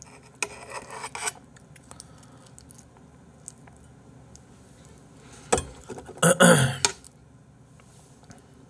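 Knife and fork scraping and clinking against a plate while cutting through a salmon fillet, with a sharp click about five and a half seconds in and a brief louder burst about a second later.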